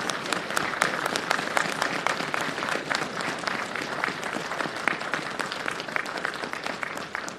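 Crowd applauding with dense, steady clapping that thins and dies away at the end.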